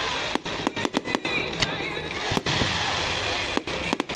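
Fireworks display: a dense, continuous din of bangs and crackling from aerial shells, with sharp reports throughout.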